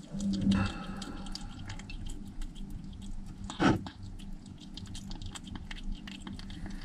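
Small kitten eating wet cat food from a plastic bowl: quick, wet chewing and smacking clicks. About three and a half seconds in there is one louder thump.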